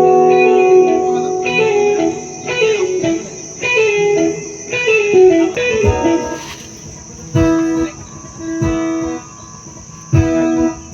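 Guitar playing during a sound check: quick runs of notes stepping down in pitch, then held notes over low thumps that come about every one and a half seconds. A steady high hiss runs underneath.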